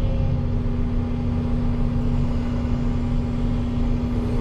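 Volvo excavator's diesel engine running steadily while the machine sits waiting, a constant low rumble with a steady hum over it.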